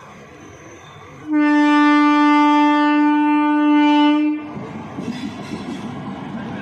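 Indian Railways locomotive horn of the approaching Howrah–Mumbai express sounding one long, steady single-note blast of about three seconds, starting about a second in. When it stops, a steady rumble of the approaching train takes over.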